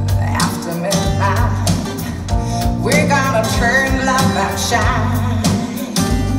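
A recorded song with singing and instruments over a steady bass line, played back through a pair of Focal Grande Utopia EM EVO floor-standing loudspeakers.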